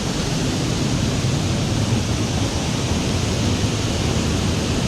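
Loud, steady rush of a waterfall and river in spate, the water running as a raging torrent.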